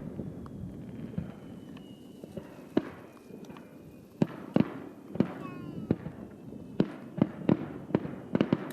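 Aerial fireworks shells bursting at a distance: about a dozen sharp bangs at irregular intervals, several in quick succession near the end. Thin falling whistle tones sound between the bangs.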